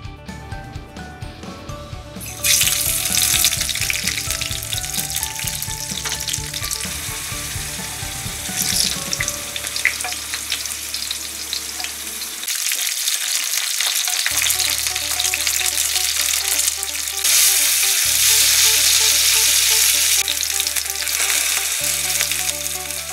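Kabocha squash and lotus root slices frying in shallow hot oil in a black iron skillet: a steady, loud sizzle that starts about two and a half seconds in and swells again for a few seconds near the end. Soft background music runs underneath.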